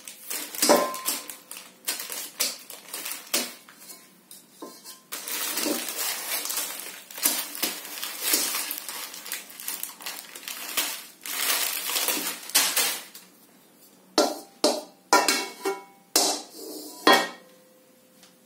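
A steel wok knocked, clanked and scraped with a spatula in irregular strokes, some blows leaving a short metallic ring, mixed with the rustle of a plastic instant-noodle packet handled in the pan; a run of loud clanks comes near the end.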